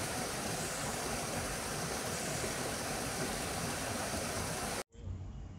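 Steady rushing of water spilling over a small stone waterfall into a pond; it cuts off abruptly near the end.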